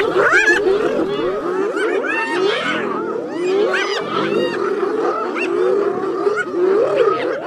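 A group of spotted hyenas calling over one another: a steady chorus of rapid cries that rise and fall in pitch.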